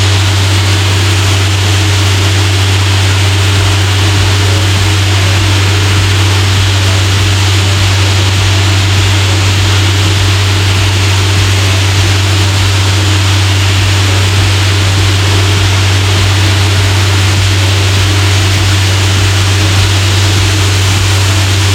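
Compressed-air blower hissing steadily over the low, constant drone of a diesel air compressor running.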